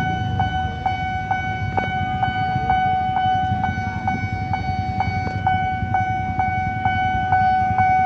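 Railway level-crossing warning bell ringing: one steady high tone, struck a little over twice a second, the signal that the gates are down for an approaching train. Underneath is the low rumble of idling motorcycles and traffic waiting at the crossing.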